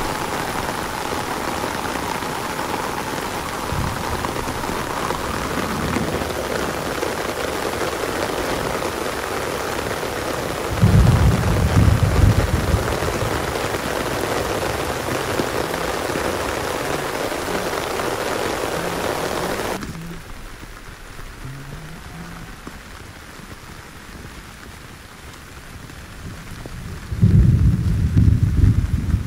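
Steady heavy rain falling, with two loud low rumbles, about eleven seconds in and again near the end. The rain noise drops off abruptly about two-thirds of the way through.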